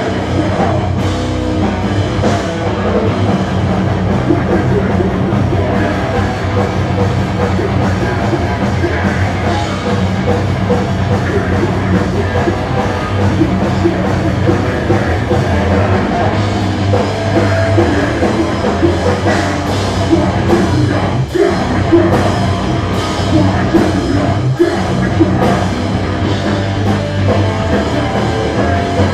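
Live punk rock band playing loud, with electric guitars, bass and a drum kit, and a vocalist singing into a microphone.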